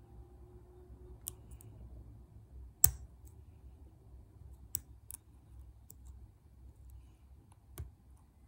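Lock pick and tension wrench working the pin stacks of a pin-tumbler lock: a handful of small, sharp, scattered metallic clicks, the loudest about three seconds in.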